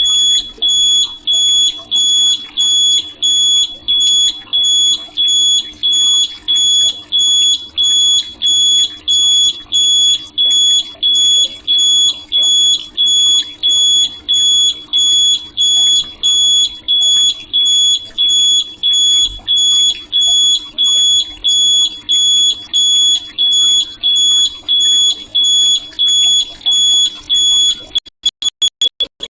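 Carbon monoxide alarm sounding: a loud, high-pitched beep repeating about twice a second, the warning that carbon monoxide has been detected. Near the end the beeps turn shorter and faster, about four a second.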